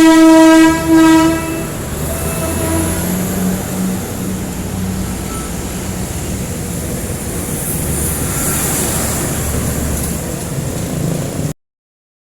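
A loud horn blasts twice in quick succession, then the steady low rumble of diesel engines running in street traffic, typical of jeepneys. The sound cuts off suddenly near the end.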